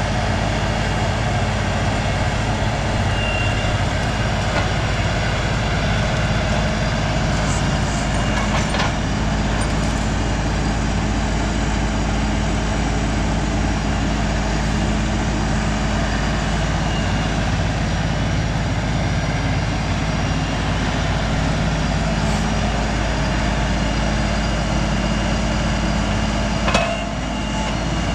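LS compact tractor's diesel engine running steadily under load as the front-loader grapple works logs, with a short knock near the end.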